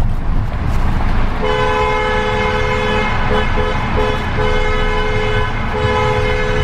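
Two-tone car horn honking over the low rumble of road noise: about a second and a half in, one long blast, then three short toots, then two more long blasts.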